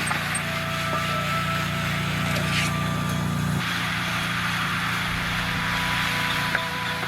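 Engine running steadily, its note changing abruptly about three and a half seconds in.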